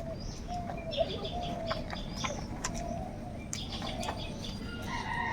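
Several crows calling over and over in short calls, with other high bird chirps and scattered sharp clicks among them.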